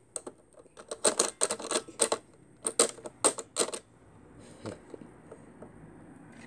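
Hands moving plastic toy figures and parts on a plastic toy spaceship: a quick, irregular run of sharp clicks and taps, then a few scattered faint clicks near the end.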